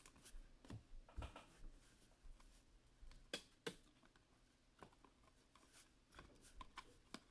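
Near silence broken by faint, scattered clicks and rustles of trading cards being handled. A card is slid into a clear plastic sleeve and the cards of a stack are flicked through one by one.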